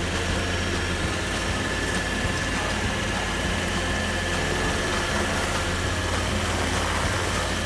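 Bandit SG-75 stump grinder running steadily under load, its spinning cutter wheel grinding into a rotten stump. A steady high whine rides over the engine drone and fades out near the end.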